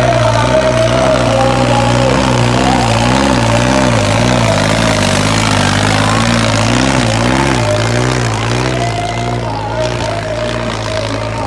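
John Deere 5310's three-cylinder diesel engine running hard under heavy load as it drags a weighted disc harrow, its note wavering up and down over and over.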